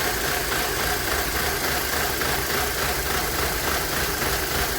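2007 Audi A4 engine idling steadily, running smoother for the moment because cleaner sprayed around the PCV valve is being drawn in and sealing a vacuum leak there. The leaking PCV valve is the cause of its misfire.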